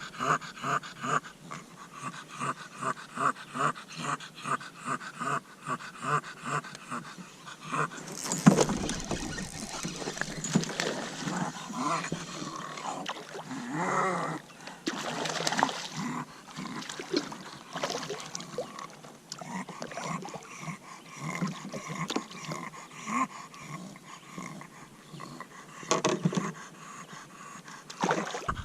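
Bulldog panting hard, about three breaths a second. About eight seconds in a sudden knock breaks in, followed by louder, irregular scuffling and breathing.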